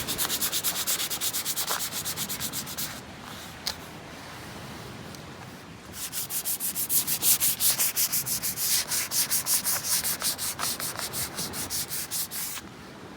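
Hand sanding of a welded polyethylene patch on a plastic kayak hull: rapid back-and-forth scraping strokes, about five a second. Two runs with a pause of about three seconds between them, and a single click during the pause.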